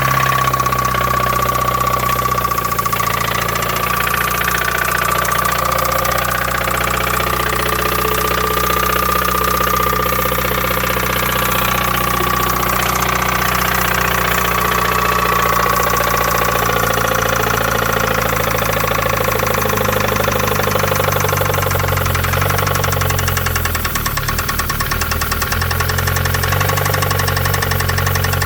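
1993 Mazda Miata's 1.6-litre twin-cam four-cylinder idling just after a cold start, with an engine knock. The idle speed shifts a little a couple of times.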